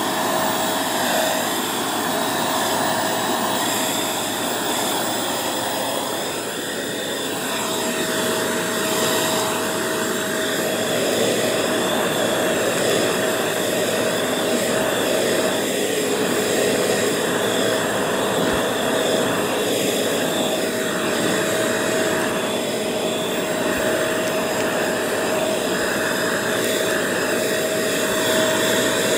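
Bissell 3-in-1 vacuum cleaner running steadily on a shag rug, a constant motor whine over the rush of air, dipping slightly for a moment about six seconds in.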